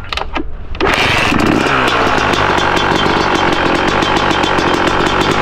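2023 Yamaha YZ250 two-stroke dirt bike engine being kick-started: a few clacks, then it catches just under a second in and settles into a steady, rapid-firing run. It is a cold start to warm up the engine before its break-in ride.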